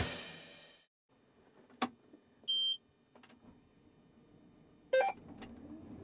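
Music dies away in the first second, then a single click and one short, high, steady electronic beep. A few more clicks follow about five seconds in.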